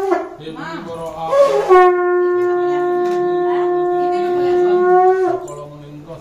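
Conch shell (shankha) blown during a Hindu puja: the tail of one blast right at the start, a brief wavering sound, then one long, steady held note of about three and a half seconds.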